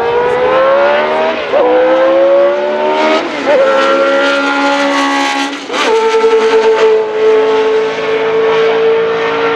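Arrows A4's Cosworth DFV 3.0-litre V8 accelerating hard, its pitch climbing and dropping at three quick upshifts, then holding steady revs for the last few seconds.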